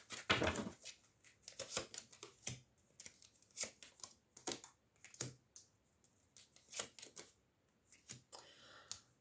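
Tarot cards being handled and laid out: an irregular scatter of short card snaps and taps.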